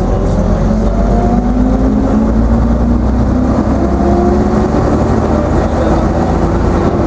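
AEC AV690 diesel engine of an RCL-class Routemaster coach running under load, its note rising slowly as the bus gathers speed, with a steady low rumble beneath.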